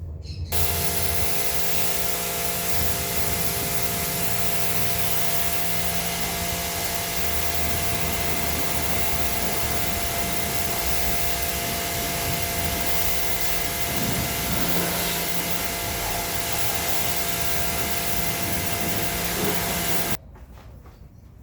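Steady machine hiss with several fixed whining tones, like a motor-driven blower or cleaning tool running. It starts abruptly about half a second in and cuts off abruptly near the end.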